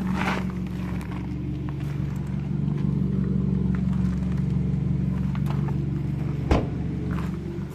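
Hyundai i30 N's 2.0-litre turbocharged four-cylinder idling steadily, running through a decat downpipe with the petrol particulate filter deleted. A single sharp knock about six and a half seconds in.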